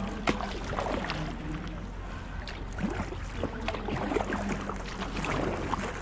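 Water splashing and dripping around a kayak moving on the sea, with scattered small knocks and clicks against the hull over a low steady hum.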